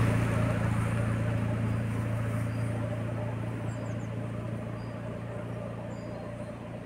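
A car driving away after passing, its engine hum and road noise fading steadily, with faint high bird chirps every second or so.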